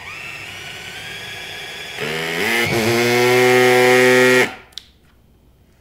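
Cordless drill boring a hole about 1 cm wide into a wooden board: the motor whines steadily, then about two seconds in grows louder and dips in pitch as the bit bites under load. It stops abruptly after about four and a half seconds, followed by a short click.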